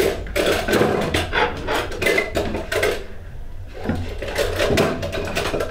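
Dishes and utensils knocking and clattering on a wooden table as they are handled, with a short lull about three seconds in.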